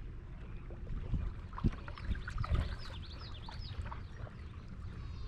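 Kayak on a river: water sounds and a few knocks against the hull, over a steady low rumble of wind on the microphone. A short run of high chirps comes near the middle.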